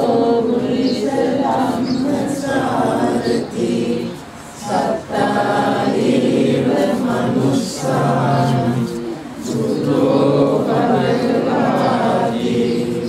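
A group of voices chanting together in Buddhist devotional chant, in long held lines with a brief pause twice.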